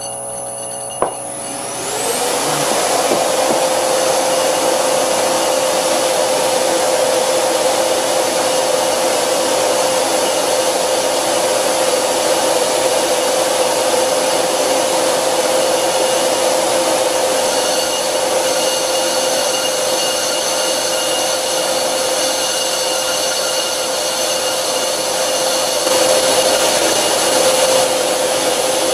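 Hundred-year-old Karger bench lathe, its motor run by a frequency drive at 20 Hz, taking a light facing cut across a cast iron brake rotor with a negative-rake carbide WNMG insert. The cut bites about two seconds in, and the lathe then cuts steadily with a loud, even cutting noise over a held tone, rumbling a little.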